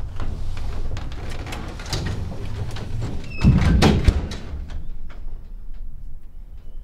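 A door being handled: a run of latch and handle clicks and knocks, a short squeak, and a heavy low door thud about three and a half seconds in.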